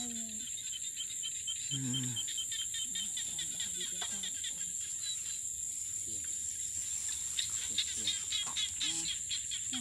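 Crickets and other insects calling: a steady high-pitched trill throughout, with rapid pulsing chirps near the start and again over the second half. Faint voices murmur now and then.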